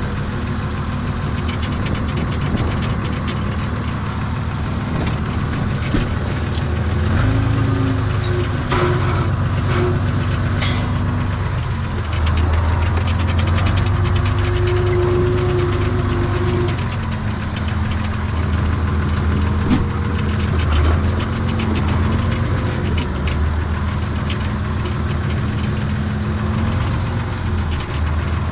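Renault tractor's diesel engine running, heard from inside the cab, its revs rising and falling several times as the throttle is worked, with a few sharp clanks in the first half.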